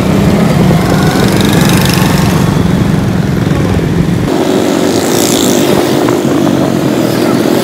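Motorcycle engine running steadily while being ridden, heard from the rider's seat. About four seconds in, the deepest rumble drops away and a steadier, slightly higher engine note carries on.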